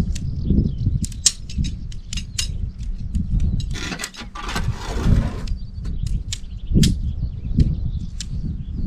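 Wind buffeting the microphone in a low rumble, over scattered sharp clicks and rustling as a Helsport Nordmarka 2 tent's nylon fabric and poles are handled during pitching, with a longer burst of rustling about four seconds in.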